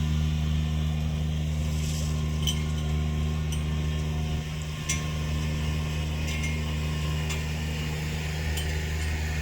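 Steady low mechanical hum with a handful of light metallic clinks spaced a second or more apart.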